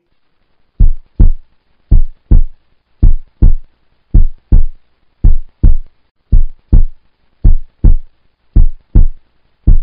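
Heartbeat sound effect: a deep double thump, lub-dub, repeating about once a second as a countdown timer.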